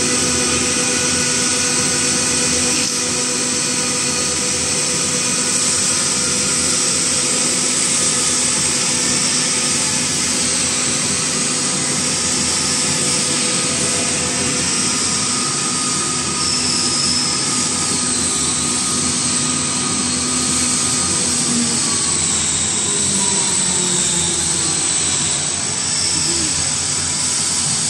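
RX-200 vacuum emulsifier homogenizer mixer running: a steady loud machine drone with several held hums and a high hiss. About three quarters of the way through, the lowest hum stops and some of the tones slide down in pitch, as if a motor is winding down.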